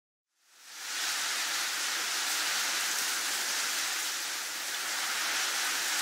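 A steady, even hiss of noise, strongest in the high range, fading in over the first second and then holding level.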